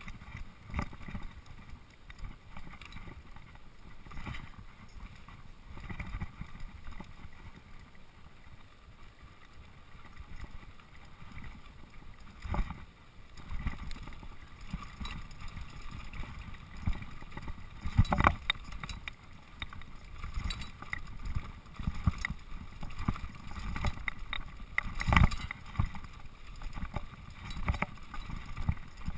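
Mountain bike riding down a rough dirt singletrack: a steady, uneven rumble of tyres on dirt, wind and the bike's parts rattling, broken by irregular knocks from bumps, the loudest two about two-thirds of the way through and near the end.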